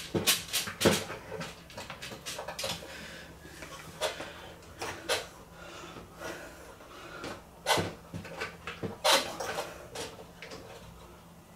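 Irregular light clicks and knocks of small plastic baskets being handled and hooked onto a bar on a tile backsplash. There is a quick flurry in the first second and more knocks a few seconds later.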